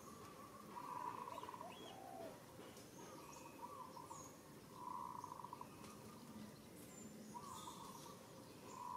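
A bird calling faintly: a short trilling call repeated about every four seconds, with fainter chirps between.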